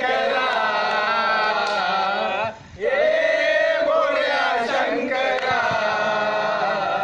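Group of men singing together in unison, holding long drawn-out notes that bend slowly in pitch, with a short break for breath about two and a half seconds in.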